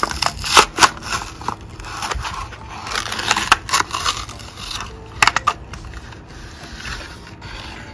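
Clear plastic blister of a Hot Wheels card crackling and crinkling as it is squeezed and torn open to free the toy car, with several sharp plastic snaps.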